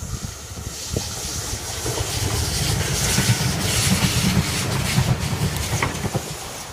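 Bathurst Bullet diesel railcar set passing close by: engine rumble and the rush and clatter of wheels on the rails, building to a peak a few seconds in and easing as it draws away.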